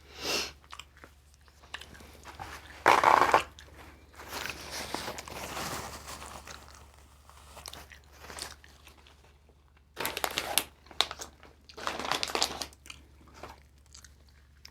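Close-miked eating: a person biting and chewing guava, with crunchy, wet mouth sounds in separate bursts, the loudest about three seconds in and more around ten to twelve seconds in.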